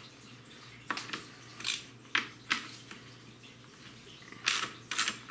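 Socket ratchet clicking in short bursts, about eight strokes with a cluster near the end, as the front brake caliper's mounting bolts are loosened.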